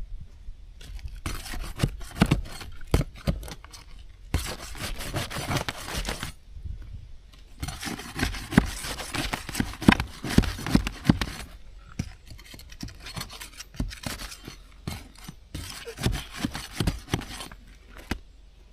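Asphalt roof shingles being lifted and worked loose by hand and tool, with irregular scraping, rubbing and sharp clicks and crackles as the brittle shingles flex.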